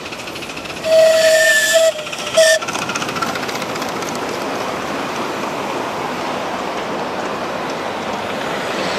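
Miniature ride-on locomotive sounding its whistle: one long blast about a second in and a short one just after. Then the steady rolling noise of the freight wagons' wheels running past on the rails.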